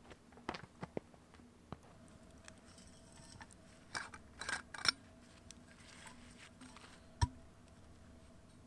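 Scattered small clicks and knocks of objects being handled by hand, a few at a time, with a cluster of them about four to five seconds in and one sharper knock near seven seconds.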